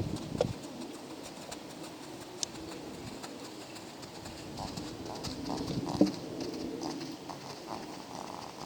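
A ridden horse's hooves clip-clopping at a walk, with scattered small knocks and one louder thump about six seconds in.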